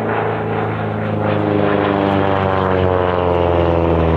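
Piper PA-46 single-engine propeller aircraft making a low pass, its engine and propeller drone falling in pitch as it goes by.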